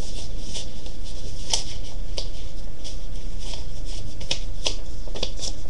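Black paper rustling and crackling in irregular clicks as it is handled and wrapped around a cardboard toilet paper roll.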